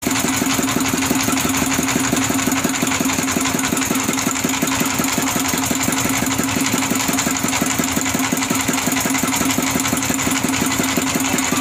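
Fishing boat's engine running steadily, a loud, even hum with a fast regular beat.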